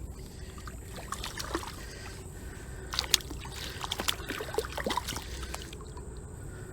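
Water splashing and sloshing as a hooked channel catfish thrashes at the surface while being brought in, with a flurry of sharp splashes in the middle.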